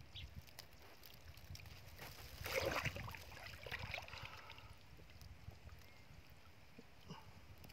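Shallow muddy water sloshing as a man wades in and kneels down in it, with one brief splash about two and a half seconds in and a smaller slosh a second later.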